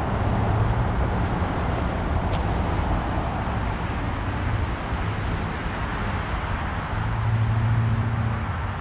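Steady rush of highway traffic, a continuous drone of passing vehicles with a low hum beneath it.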